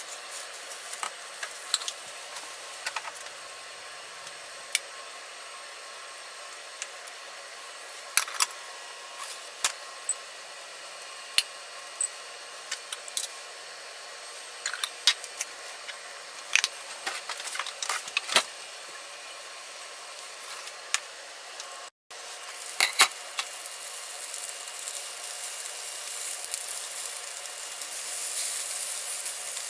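Scattered light clicks and clinks over a steady hiss. After a brief dropout about two-thirds of the way through, the hiss grows louder toward the end.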